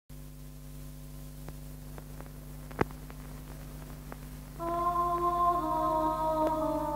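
A steady low hum with scattered faint clicks and one sharp click near three seconds. About four and a half seconds in, the film's score comes in with long held notes that shift slightly in pitch.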